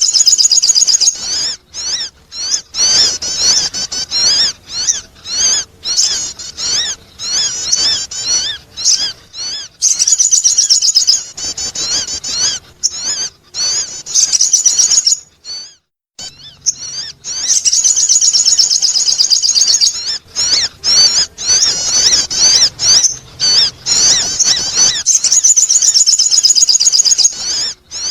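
Sogon bird singing a rapid, high-pitched chirping and warbling song in long runs with short breaks, pausing briefly about halfway through.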